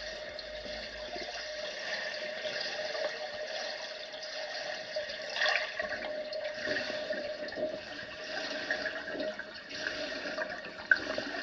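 Water in a diving pool, heard up close as a steady rushing with scattered bubbling and a faint steady hum underneath.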